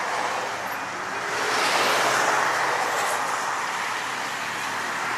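Freeway traffic rushing by, a vehicle passing close swells up about a second and a half in and slowly fades.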